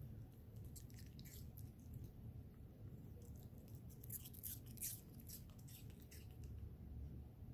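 Yorkshire terrier puppy chewing small pieces of apple: faint crunching clicks, thickest about four to five seconds in.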